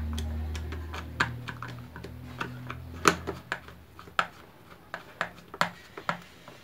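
Screwdriver turning screws into the plastic base of a Moulinex grinder: a run of irregular sharp clicks and ticks. A low steady hum underneath stops about three and a half seconds in.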